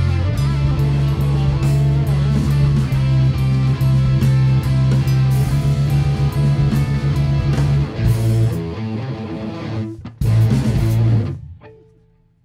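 Live rock band of electric guitars, bass guitar and drums playing the closing bars of a progressive rock song. The cymbals stop about eight seconds in; after a short break a final loud chord rings out and dies away near the end.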